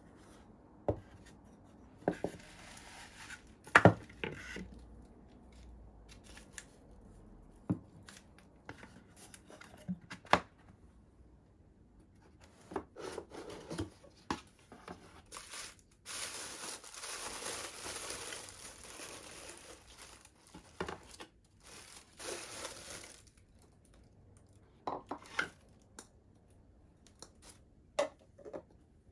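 Objects being handled on a wooden desk: scattered knocks and clicks as a paulownia-wood box, a glass sake bottle and a lacquered bowl are picked up and set down, the loudest about four seconds in. About halfway through comes a long stretch of tissue paper rustling and crinkling as tableware is unwrapped.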